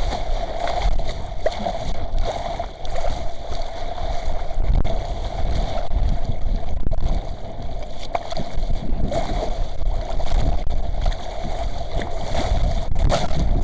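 Strong wind buffeting the microphone with a heavy, gusting low rumble, over water rushing and splashing along the hull of a small sailing yacht under way. A steady hum runs beneath it.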